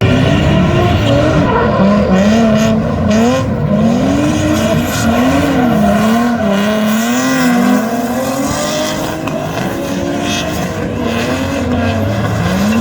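Drift car's engine revving up and down over and over as the throttle is worked through a slide, with tyres squealing.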